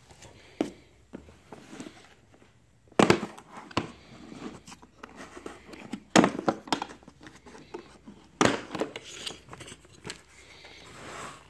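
A hard plastic pistol case being handled and opened: several sharp plastic clacks and knocks a few seconds apart as the case is turned and its snap latches are flipped open. A light paper rustle follows near the end as the lid lifts off the wrapped revolver.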